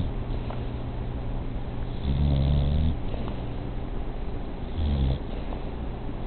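A sleeping pet snoring: a long, low snore about two seconds in and a shorter one about five seconds in, with quieter breathing between.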